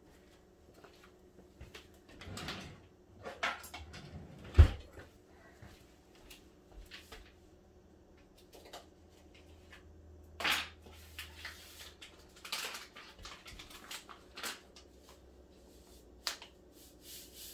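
Kitchen handling sounds: scattered knocks and clatter of containers and utensils on the counter, with one sharp, loud knock about four and a half seconds in. A paper packet of dip mix is handled near the end, over a faint steady hum.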